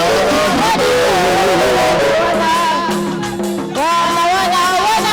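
Music: a song with guitar and singing voices.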